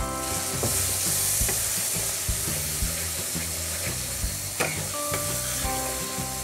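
Spice paste sizzling in a hot pan, with a little water just added, loudest in the first couple of seconds. A spatula stirs and scrapes it, knocking now and then against the pan, as the masala is fried down.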